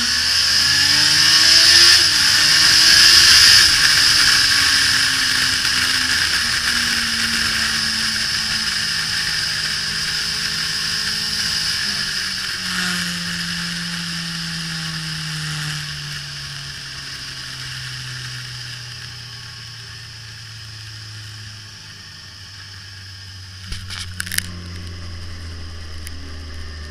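Suzuki GSX-R1000 K5's inline-four engine heard from an onboard camera over heavy wind rush. The revs climb hard in the first few seconds, then fall away steadily as the bike slows and the wind dies down, with a few sharp clicks near the end.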